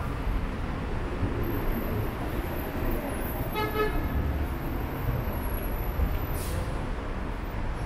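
Busy city street ambience: a steady low traffic rumble, with one short horn toot about halfway through and a brief high hiss later on.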